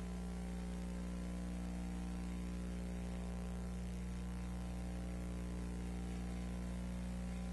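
Steady electrical hum with a constant hiss, unchanging throughout. There is no other sound.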